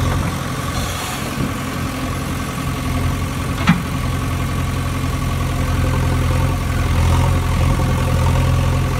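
A steady, low engine-like idling drone, with one sharp click about four seconds in.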